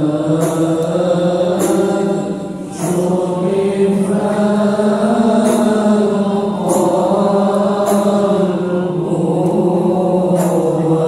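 Men's voices chanting a devotional Arabic syair together in long, drawn-out melodic lines, with a brief dip about two and a half seconds in.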